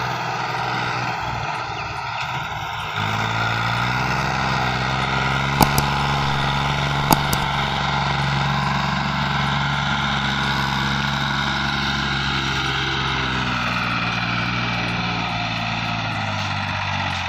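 A Ford tractor's diesel engine drones steadily as it hauls a heavily overloaded trailer, getting louder about three seconds in and shifting pitch slightly near the end. Two sharp clicks come a second and a half apart.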